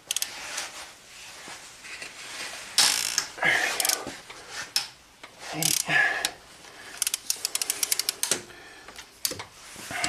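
Hand ratchet with a socket on a long extension loosening bolts in an engine's cylinder head: metal clinks and scrapes, two louder bursts about three and six seconds in, and a quick run of ratchet clicks near the end.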